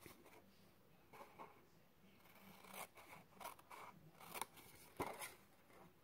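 Small paper snips cutting along crease lines in a sheet of patterned paper: a series of faint, short snips, unevenly spaced.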